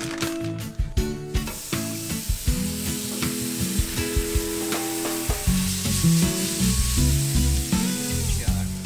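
Bacon strips frying on a hot grill griddle, a steady sizzling hiss that sets in about a second and a half in, with guitar music playing over it.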